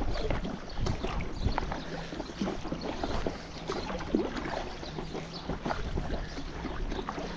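Kayak paddle dipping into river water in irregular small splashes and drips, with wind rumbling low on the microphone.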